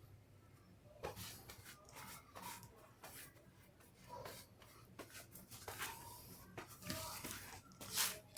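Faint scattered clicks and rustles of parts being handled, with a sharper click near the end.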